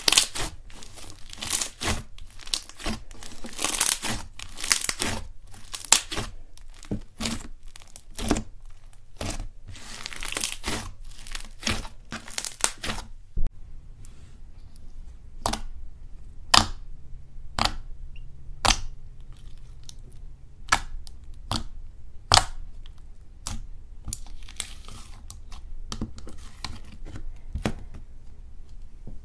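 Soft slime being pressed, kneaded and stretched by hand, making crackling and popping sounds. The first half holds a dense run of crackles; after about thirteen seconds the pops come singly, a second or so apart.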